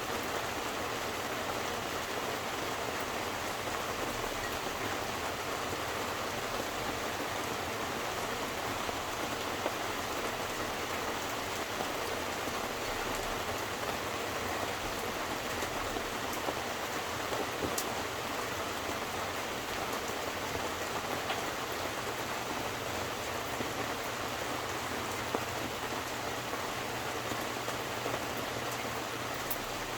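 Steady rain falling, an even hiss with occasional single drops ticking.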